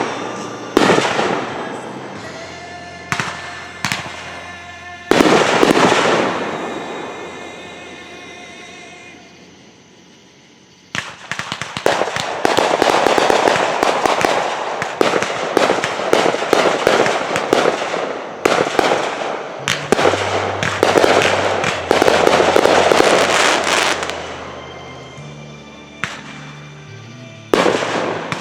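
Fireworks bursting: a few separate bangs, the biggest about five seconds in, then after a lull a dense run of rapid crackling bursts lasting over ten seconds, and two more bangs near the end.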